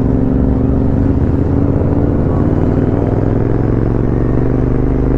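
Royal Enfield Continental GT 650's 648 cc parallel-twin engine running steadily through an aftermarket AEW exhaust, a loud, even engine note.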